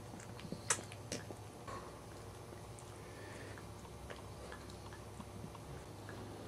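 Mother Cairn Terrier licking her newborn puppy: faint wet smacking and clicking over a low steady hum, with two sharper clicks in the first second or so.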